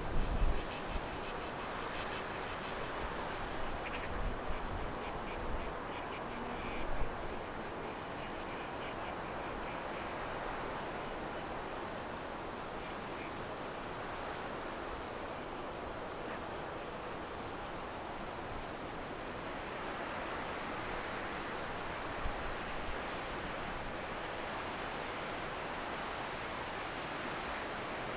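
Insects chirring outdoors in a steady, high-pitched drone with a fast pulsing rhythm, over a faint, even background hiss.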